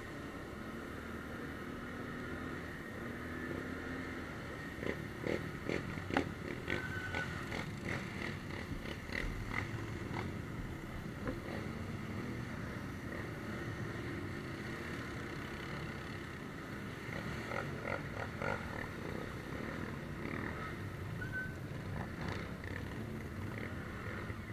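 ATV engine running steadily while riding, heard from on board. Sharp knocks and clatter come between about five and eleven seconds in, with a few more near the end.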